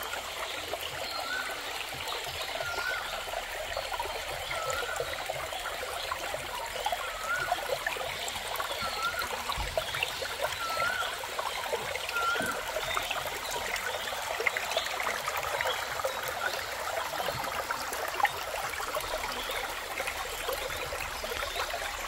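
Shallow rocky stream trickling and burbling steadily over stones. A short call repeats about every second and a half through the first half.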